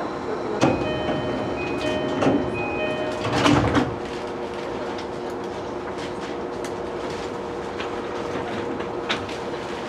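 Train door chime sounding in a short repeated pattern, then the sliding doors of a JR East E233-2000 series car closing with a loud thud about three and a half seconds in. After that, a steady hum while the car stands.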